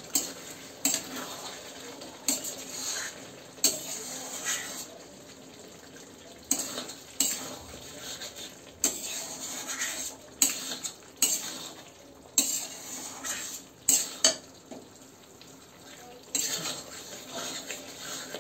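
A metal spatula scraping and clinking against a metal kadai as mutton curry is stirred and fried down in its masala (kosha), in irregular sharp knocks over a low sizzle.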